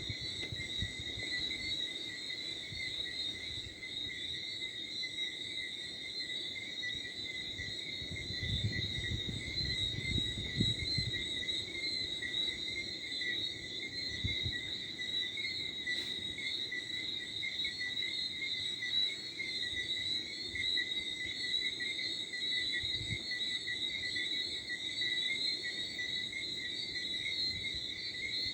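A steady, unbroken night chorus of crickets and frogs, with high ringing trills. Light wind rumbles on the microphone in gusts about a third of the way in.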